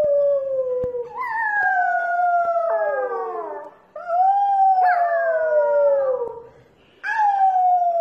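Corgi puppy howling: a run of long, drawn-out howls, each sliding down in pitch, with short breaks between them.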